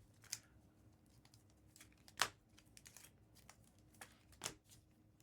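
Trading cards and blaster-box pack wrappers being handled: faint crinkling and rustling with a few sharp clicks, the loudest about two seconds in.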